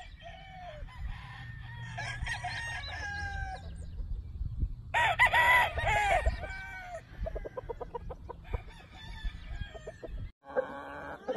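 Roosters crowing, several calls overlapping, fainter ones first and the loudest, long crow about five seconds in, over a steady low rumble. The sound breaks off abruptly near the end.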